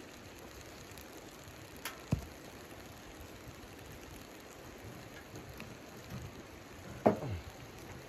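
Steady crackle and sizzle of a wood fire burning in a small portable camp stove, with a few sharp pops about two seconds in. Near the end comes a louder clack of wood against the stove as a stick is fed into the open firebox.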